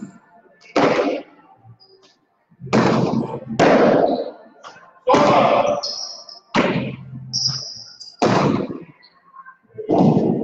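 Jai alai pelota cracking against the fronton's walls and floor in a rally, about seven sharp, echoing impacts one to two seconds apart, with a couple of short high squeaks between them.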